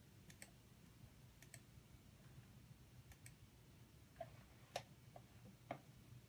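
Faint computer mouse clicks against near-silent room tone: three quick double clicks in the first few seconds, then several single clicks, as the video player's quality setting is changed.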